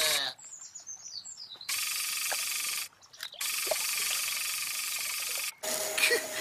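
Cartoon robot sound effects: a run of quick falling electronic chirps, then two long buzzing electronic whirs, the second about twice as long as the first, with a short gap between. Near the end come more sliding, warbling tones.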